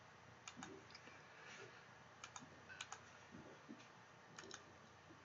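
Near silence: room tone with a dozen or so faint, scattered clicks.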